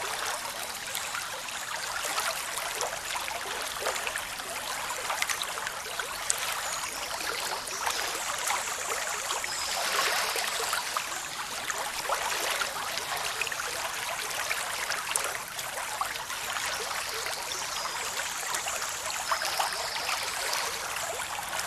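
Waterfall rushing down rocks: a steady rush of splashing water, mostly hiss and spatter with little deep rumble.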